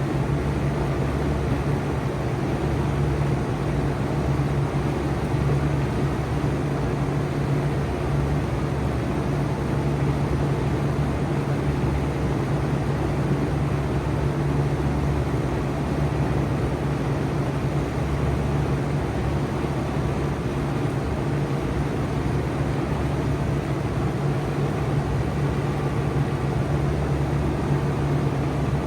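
2024 Bard 4-ton wall-hung heat pump running steadily in cooling mode: a constant low hum under an even rush of fan air.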